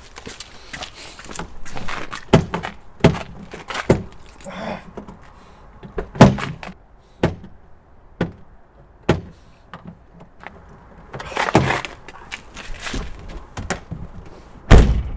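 Car door handle and latch being worked: a series of sharp clicks and knocks, roughly one a second, as a car door is tried and opened. A heavy thump near the end is the loudest sound.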